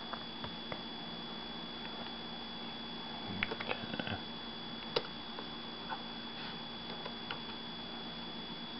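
Scattered clicks of a computer mouse and keyboard, with a quick run of several clicks about three and a half seconds in and a single sharp click at five seconds, over a steady faint high-pitched electrical whine and low hum.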